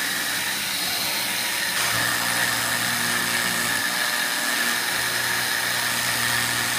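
Home-made CNC mill spindle, driven by a brushless multicopter motor, running at high speed with a steady high whine and hiss as its end mill cuts a black sheet. About two seconds in the whine strengthens and a lower steady hum joins.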